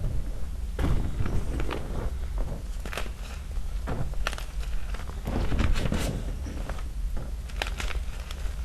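Small gym-chalk chunks being crushed by hand in loose chalk powder: soft crunching broken by irregular, quick small snaps and crackles, several a second.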